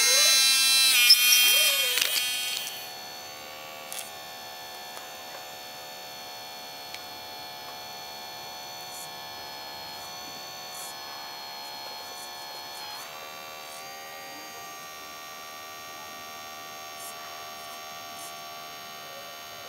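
Electric hydraulic pump of an RC hydraulic excavator, a steady buzzing whine. It is loud for the first two or three seconds with its pitch wavering up and down, then quieter and steady.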